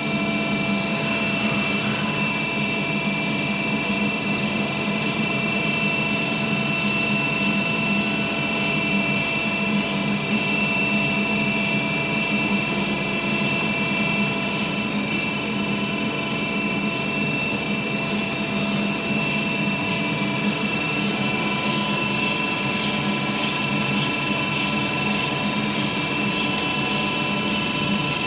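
Kellenberger Kel Vista CNC cylindrical grinder running steadily: a constant machine hum with several high, steady whining tones that do not change.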